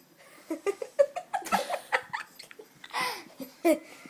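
Person laughing in a quick run of short giggles, with a breathy gasp about three seconds in.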